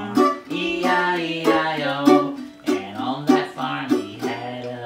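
Mandolin being played, with a man's low voice singing along.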